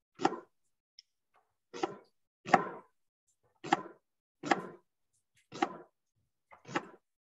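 Chef's knife slicing an onion on a wooden cutting board: about seven separate knocks of the blade on the board, roughly one a second.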